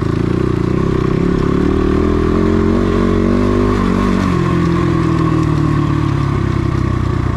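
Motorcycle engine running under throttle. Its pitch climbs for a couple of seconds, then drops sharply about four seconds in and holds steady.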